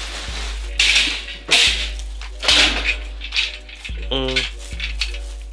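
Bubble wrap and plastic packing film crinkling and rustling in repeated loud bursts as they are pulled off a garden cart's parts in a cardboard shipping box.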